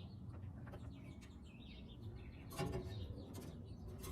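Faint bird chirps in the background over a low steady hum, with a few light clicks in the second half.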